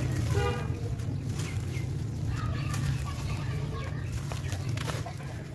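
Dry, gritty sand and charcoal chunks crumbled by hand, the crumbs pattering into a plastic tub, over a steady low rumble. A short animal call sounds in the background about half a second in.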